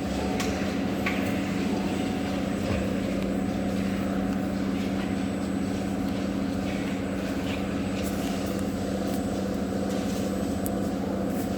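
Insulating-glass production machinery running with a steady, even hum, with a few faint clicks over it.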